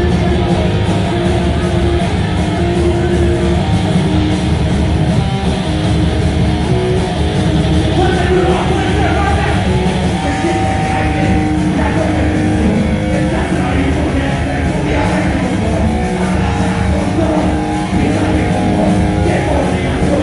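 Rock band playing loud, guitar-led heavy rock without a break.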